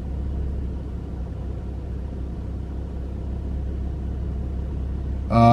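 A car engine running as a steady low rumble, unchanging through the pause.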